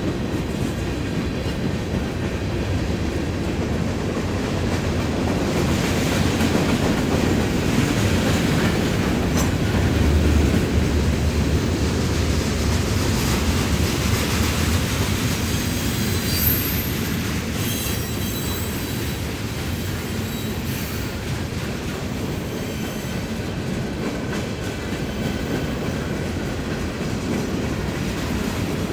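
Freight cars, open-top hoppers and tank cars, rolling steadily past, their wheels clattering over the rails, with a few brief high wheel squeals a little past halfway.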